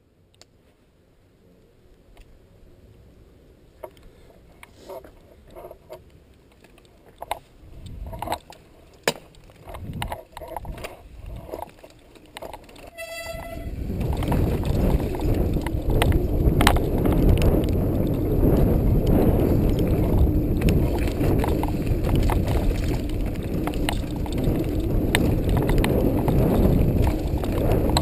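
Scattered clicks and knocks of a mountain bike and its boom-mounted camera rig being handled, then a short pitched toot about 13 seconds in. From about 14 seconds on, the bike rolls over a dirt trail with a loud steady rumble of tyres and wind, shot through with the rattle of the boom mount.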